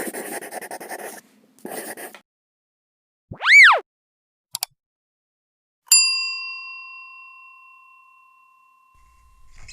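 A single bell-like ding that rings out and fades over about three seconds, about six seconds in. It comes after two short rattling noise bursts, a brief pitched swoop that rises and falls, and a click, in the manner of added intro sound effects.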